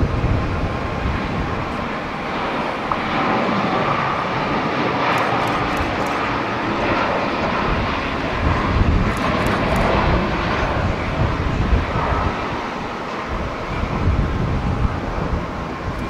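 Jet engines of a Boeing 787 airliner at takeoff thrust through the takeoff roll and climb-out: a steady jet roar that is strongest around the middle and eases a little near the end. Wind gusts rumble on the microphone.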